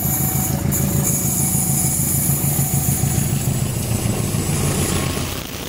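Diesel locomotive engine running under power as it draws near and passes close by, hauling a passenger train: a loud, low, pulsing engine note with a hiss above it, dipping slightly near the end.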